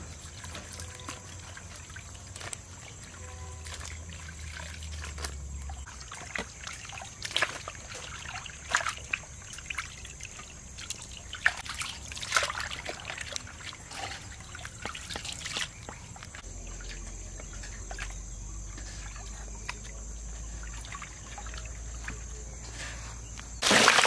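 Water trickling and sloshing with scattered light knocks and clicks; just before the end a louder rush of pouring water starts suddenly.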